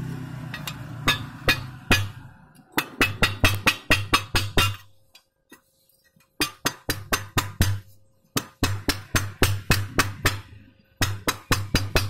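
Chipping hammer striking a fresh weld bead on steel tube to knock the slag off: rapid sharp metal knocks, about five a second, in runs of one to two seconds with short pauses between.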